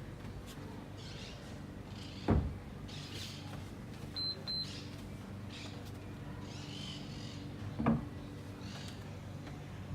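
Two dull thumps on a floor about five and a half seconds apart, over a steady low hum, with two short high beeps in quick succession between them.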